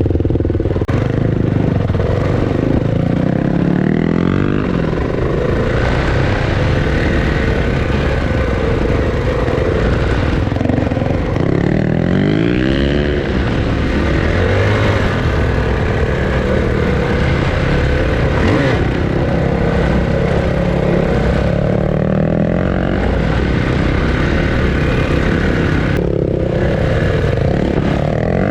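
Kawasaki KLX300's single-cylinder four-stroke engine running through a Barker's aftermarket exhaust while the bike is ridden, its pitch climbing and dropping back several times as the rider opens and closes the throttle.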